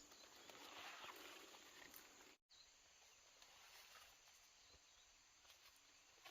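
Near silence: faint outdoor background hiss with a few soft ticks, and a momentary dropout of all sound about two and a half seconds in.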